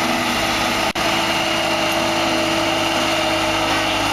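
New Holland LS180 skid-steer loader's diesel engine running steadily under power. The sound breaks off for an instant about a second in.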